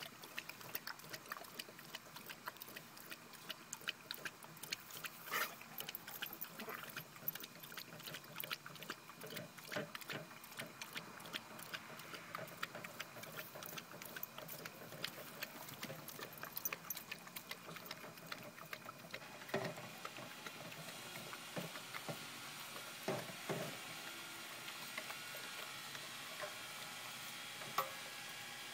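Two pit bulls lapping water from a plastic bowl, a quick, irregular patter of wet clicks, with a few louder knocks after the middle.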